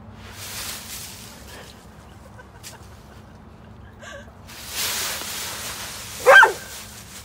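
Dry fallen leaves rustling in two bursts as dogs plunge through a deep leaf pile, then a single short, high-pitched dog bark near the end, the loudest sound.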